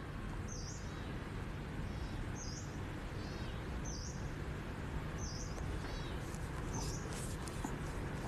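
A bird calling over and over: a short high chirp about every second and a half, with a quick run of falling notes between some of the chirps. A steady low background noise runs underneath.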